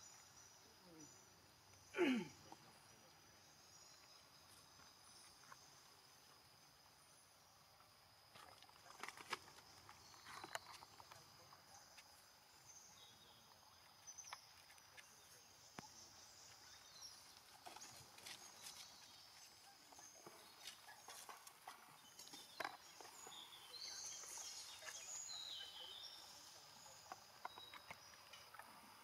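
Quiet forest ambience: a steady high insect drone with scattered faint clicks and rustles. About two seconds in there is one short vocal sound that slides down in pitch.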